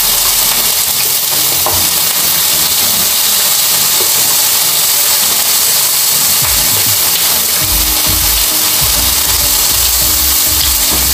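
Steady sizzling hiss of food cooking on the hot grill and in the pan. In the second half, soft irregular mouth sounds of close-up chewing join it.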